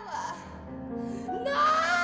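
Contemporary chamber ensemble playing: a line slides down and gives way to low held tones, then the soprano's voice slides up into a held vibrato note near the end.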